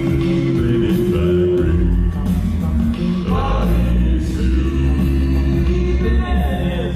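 A cappella vocal group singing, led by a very deep bass voice that holds low notes from about two seconds in.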